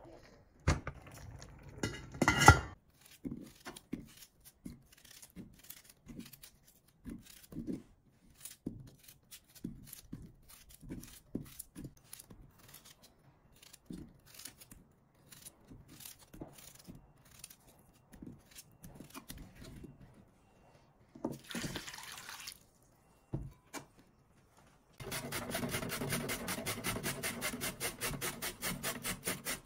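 Kitchen food-preparation sounds: a loud clatter of utensils about two seconds in, then scattered light clicks and knocks, a brief run of water about two thirds of the way through, and near the end a fast, regular rasping of food being grated.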